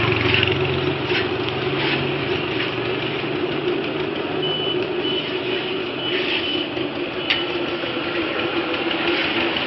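Road traffic noise: a vehicle engine rumbling and fading over the first few seconds over a steady traffic hum, with a run of short high-pitched beeps about halfway through.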